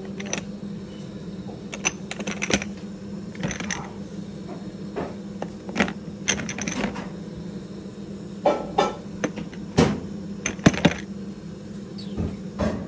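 Small spice jars with plastic lids clicking and clinking against one another as a hand rummages through them, in irregular sharp knocks, over a steady low hum.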